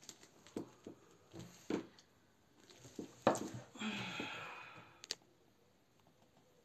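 Light knocks and clicks from a metal piping flower nail and cream-work tools being handled at a table, with a short breathy rustle about four seconds in.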